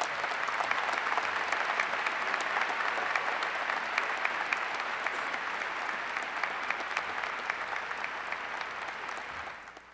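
Large audience applauding steadily, a dense patter of many hands clapping that dies away near the end.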